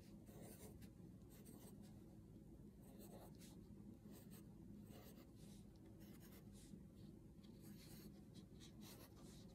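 Faint scratching of a pencil on paper in many short, irregular strokes, drawing small circles.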